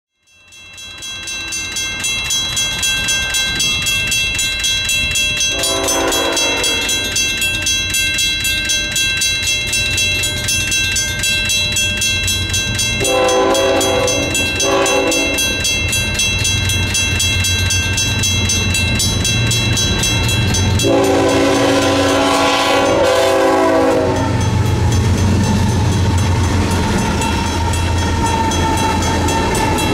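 Diesel freight locomotive's air horn sounding the grade-crossing pattern, long, long, short, long, over an electronic crossing bell ringing steadily. The low rumble of the locomotives' engines and the train grows as the lead units pass near the end.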